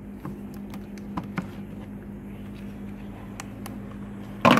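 Plastic engine-bay cover and its clips being worked loose by hand: scattered light clicks and taps, then a louder clatter near the end as the cover comes free. A steady low hum runs underneath.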